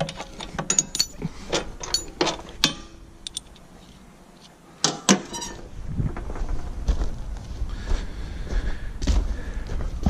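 A run of sharp clicks and knocks from hand work on a compact crawler, then a lull and two loud thunks about five seconds in. A steady low rumble follows.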